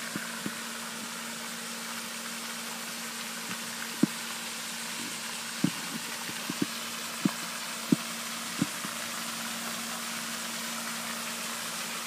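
Steady rushing spray of a floating pond fountain, with a low steady hum and a run of short knocks in the middle.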